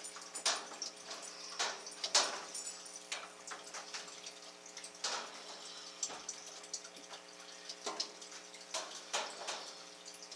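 Irregular light clicks and taps of hands working on washing machine parts, with a faint steady electrical hum underneath.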